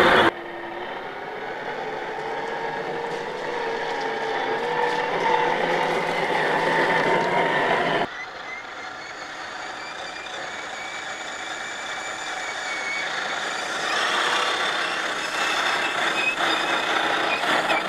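Whine of a 1/10-scale RC crawler's brushed electric motor and gearbox as the truck drives, the pitch drifting slightly with throttle. The sound changes abruptly about eight seconds in.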